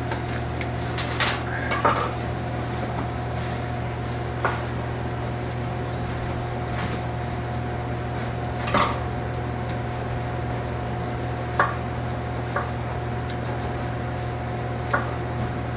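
Chef's knife slicing eggplant and knocking on a wooden cutting board in scattered taps, the loudest about nine seconds in, over a steady low kitchen hum.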